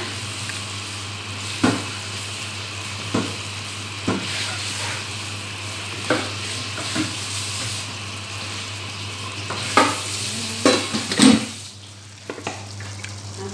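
Liver and chicken gizzard stew with carrots and potatoes sizzling in a pan, with a series of short knocks against the pan as the food is worked. The sizzle drops off noticeably near the end.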